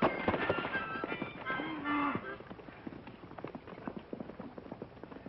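Hoofbeats of a horse galloping past: a quick run of clip-clops that grows fainter after about two seconds. A few held tones sound over the first two seconds.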